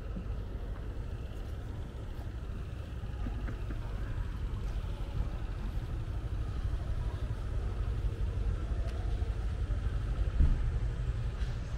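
City street traffic: the steady rumble of cars running and passing, growing a little louder partway through, with one short knock near the end.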